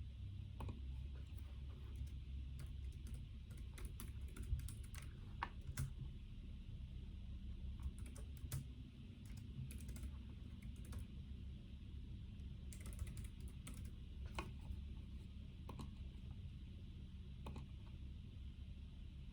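Typing on a computer keyboard in irregular bursts of key clicks with short pauses, over a steady low hum.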